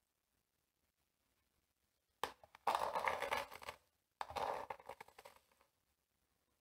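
Metal spoon scraping granulated sugar along the inside of a plastic container as the sugar is tipped into a bottle. It comes in two scratchy bouts of about a second and a half each, the first starting about two seconds in with a short click.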